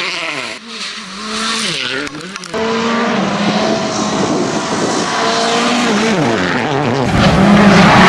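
Volkswagen Polo R WRC rally cars on a gravel stage, their 1.6-litre turbocharged four-cylinder engines revving up and dropping in pitch through gear changes and lifts, with gravel spraying from the tyres at the start. The sound jumps abruptly from car to car about two and a half and seven seconds in, and the last car is the loudest, held at steady high revs.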